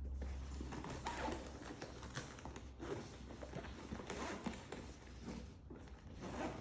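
Drone accessories and packaging being handled: irregular light knocks, taps and rustling.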